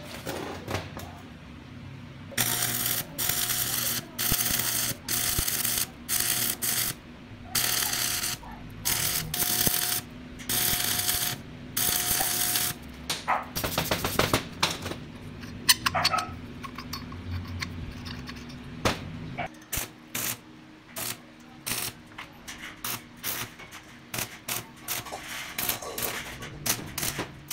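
Stick (arc) welding on steel: the arc crackles and hisses in repeated short runs of about half a second to a second, each with a steady tone from the welding machine under load. Later it breaks into many short crackles and snaps over a low hum.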